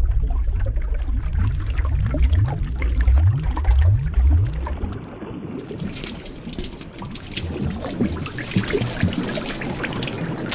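Shallow seawater splashing and sloshing, with irregular small splashes and drips.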